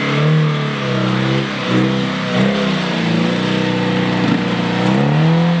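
Lada Niva's engine revving up and down over and over under load, the pitch climbing and dropping every second or so, as it fights to pull out of a deep muddy rut.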